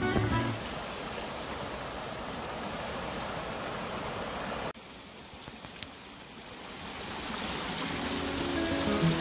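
A small rocky creek running and splashing over stones, a steady rush of water that suddenly drops quieter about halfway through. Background music comes in near the end.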